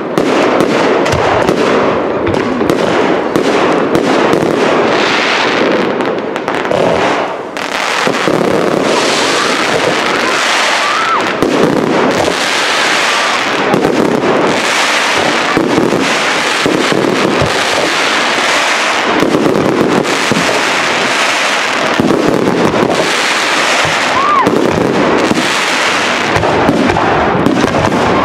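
Fireworks display finale: a dense, continuous barrage of shell bursts and crackling. The barrage eases briefly about seven seconds in, then goes on in rolling waves of bursts every second or two.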